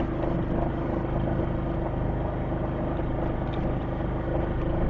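Gas-powered golf cart's engine running at a steady speed while the cart drives along a paved path, heard from on board.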